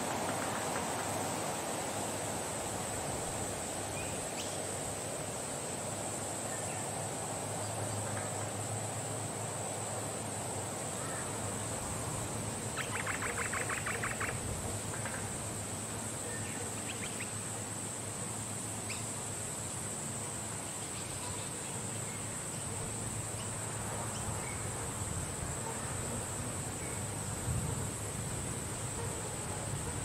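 Outdoor ambience in a date palm grove: steady wind noise with a continuous high-pitched whine, scattered short bird chirps, and one rapid trill lasting about a second and a half near the middle.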